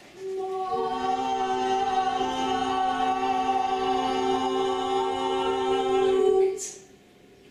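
A small group of women singing unaccompanied, their voices entering one after another in the first second to build a long held chord. The chord cuts off about six and a half seconds in with a short hiss.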